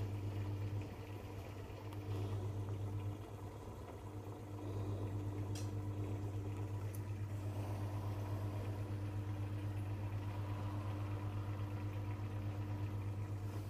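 Steady electrical hum of an aquarium filter pump motor, with faint water movement. The hum gets a little louder about four and a half seconds in, and a couple of faint clicks come in the middle.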